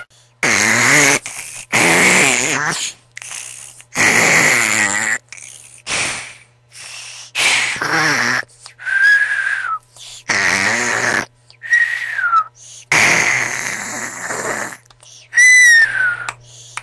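A person snoring loudly in a string of raspy, fluttering snores. Several breaths end in a high whistle that slides down in pitch.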